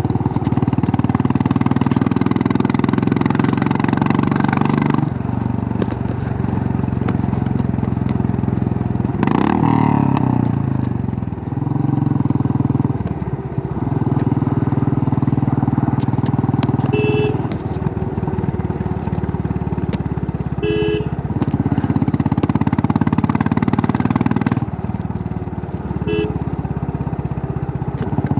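Royal Enfield Classic 350's single-cylinder engine running as the motorcycle is ridden, its note rising and dropping with throttle and gear changes. Short horn honks sound three times in the second half.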